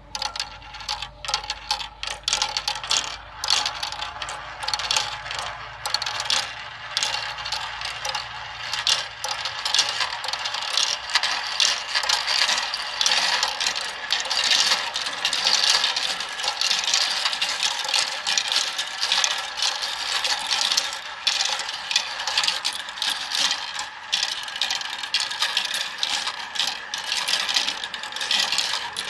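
Many small plastic balls clattering and clicking as they roll down a plastic toy marble run, through its funnel, spiral bowl and track pieces. The clicking is dense and continuous.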